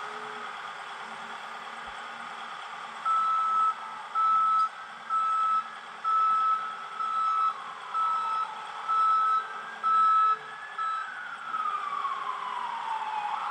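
A heavy machine's backup alarm beeping about once a second, eight beeps in a row, over a steady engine hum. An ambulance siren sweeps up and down from midway, growing louder near the end.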